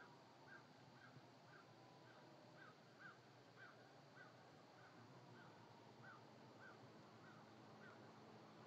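Faint animal calls, most likely a bird: short, evenly spaced notes repeating about twice a second, stopping shortly before the end.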